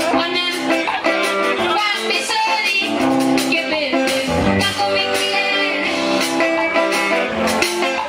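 Live band music: a woman singing into a microphone over guitar and a drum kit with a steady beat.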